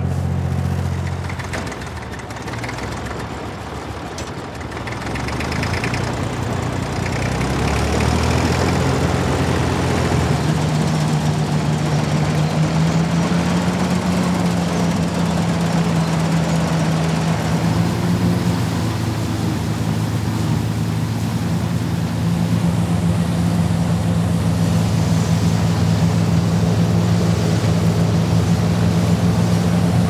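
Fordson Super Dexta tractor's three-cylinder diesel engine running under load as it drives a side-mounted JF MS5 combine harvester through wheat, with the combine's threshing machinery running along with it. The engine note rises around eight to ten seconds in and then holds steady and loud.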